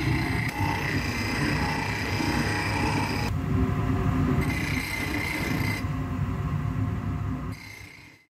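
Workshop noise of aluminium castings being finished with tools: a steady, rough scraping and grinding noise that changes abruptly a few times and fades out near the end.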